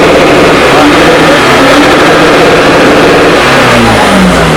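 Tuned car's engine and exhaust running loud close by, with the revs rising near the end.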